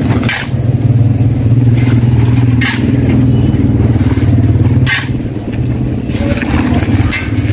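A motor-vehicle engine running steadily nearby, with four short scrapes of a shovel against the pavement about two seconds apart.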